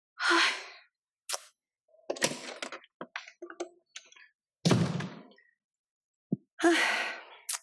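An exasperated huff of breath, then clicks and rattles of a door being handled, a heavy door thunk about five seconds in, and a long sigh near the end.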